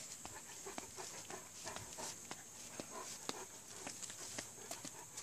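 Faint, irregular footsteps and small taps of a person walking across a lawn onto a concrete patio, over a steady high-pitched hiss.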